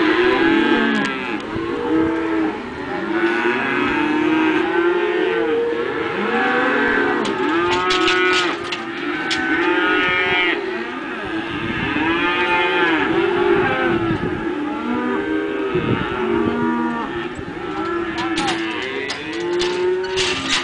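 A penned herd of cattle mooing and bawling without pause, many calls overlapping one another.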